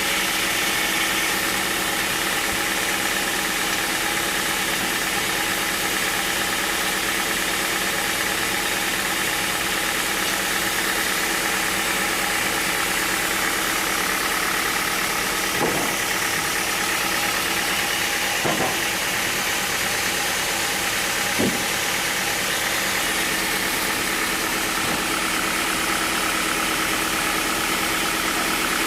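Sawmill machinery running steadily: a constant engine-like hum with several steady tones, broken by three short knocks past the middle.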